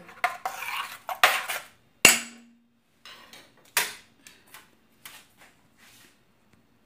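Stainless steel cooking pot and ladle clanking as the pot is handled: a string of metal knocks and clinks. The loudest comes about two seconds in and is followed by a short ring, with a second strong knock near four seconds and lighter clicks after it.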